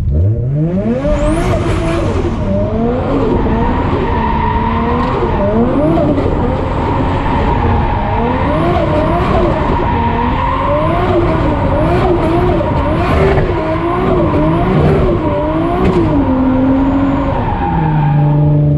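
R33 Skyline's turbocharged RB25DET straight-six, revved up and let off again and again, the engine note climbing and dropping about every one to two seconds. Short high chirps come at several of the drops, the turbo flutter on lift-off.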